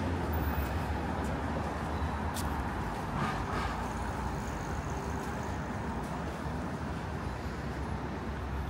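City street traffic ambience: a steady wash of passing vehicles with a low engine rumble underneath.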